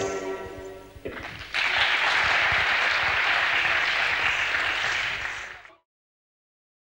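Live accompaniment music ends in the first second, then an auditorium audience applauds steadily; the applause is cut off abruptly near the end.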